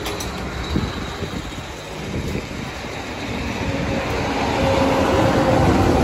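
Road traffic noise: a steady rumble of engines and tyres that grows louder over the last few seconds as a heavy vehicle approaches.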